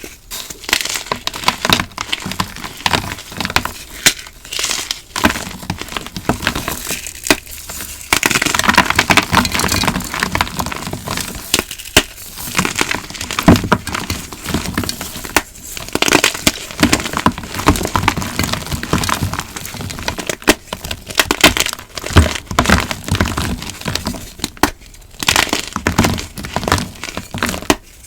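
Glitter-topped blocks of gym chalk being crushed and crumbled by hand, a dense crunchy crackling made of many sharp cracks, broken by brief pauses a few times.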